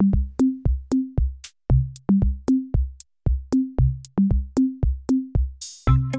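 Background music: an electronic drum-machine beat with a kick drum and short bass notes, about four hits a second, with a brief cymbal swell near the end.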